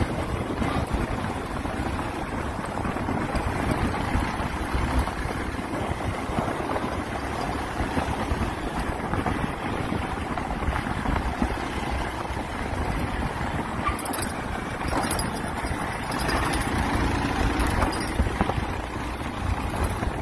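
Motorcycle riding along a dirt track: engine running steadily under wind noise on the microphone.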